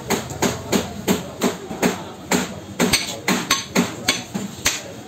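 Butcher's cleaver chopping cow heart on a wooden log chopping block: a steady run of sharp chops, about two to three a second.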